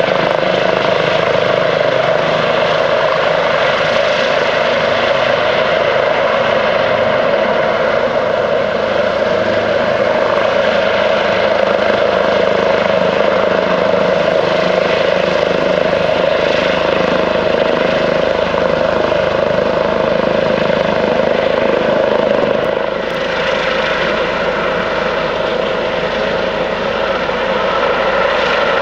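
Airbus H145M helicopter running steadily in low flight: main rotor, Fenestron ducted tail rotor and twin turboshaft engines, with a constant tone over the rotor noise.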